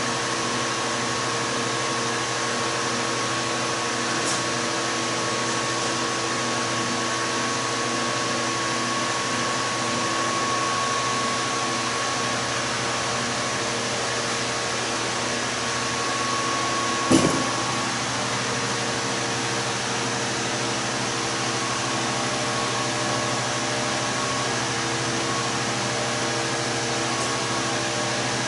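Steady whooshing hum of a running motor, with several constant tones, broken by one sharp knock about 17 seconds in.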